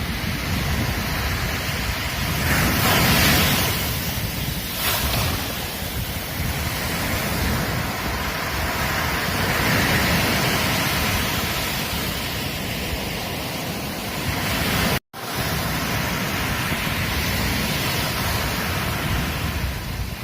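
Ocean waves breaking and washing up a beach, a continuous rush that swells louder several times as waves come in. About fifteen seconds in the sound cuts out completely for a split second, then resumes.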